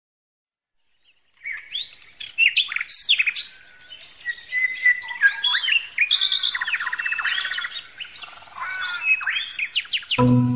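A chorus of several songbirds chirping, whistling and trilling, starting about a second and a half in. Music comes in right at the end.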